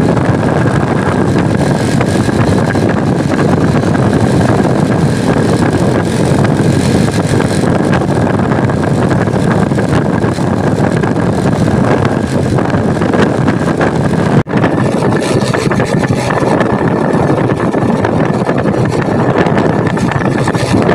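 Steady engine and road noise of vehicles on the move along a road, broken once by a brief dropout about two-thirds of the way through.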